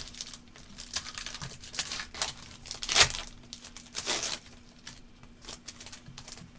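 Foil trading-card pack wrapper being torn open and crinkled by hand, an irregular run of crackly rustles that is loudest about three seconds in and again about a second later, then quieter handling of the cards.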